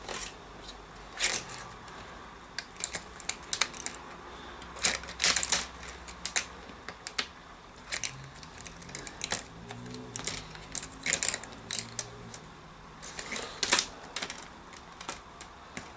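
Irregular clicks and light knocks of a plastic laptop screen bezel being pried at and handled. These are the snap-fit clips of a Lenovo IdeaPad P580's display bezel being worked loose.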